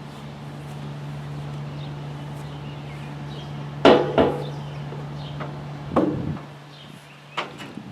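A steady low hum with four sharp knocks or bangs over it, the loudest about four seconds in; the hum stops near the end.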